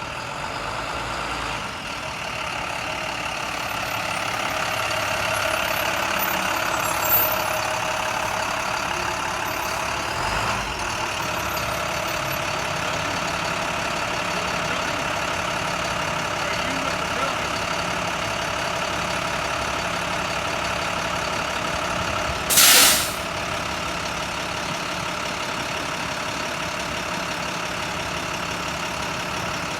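Steady hum of an idling engine, broken by one short, loud burst of hiss about three quarters of the way through.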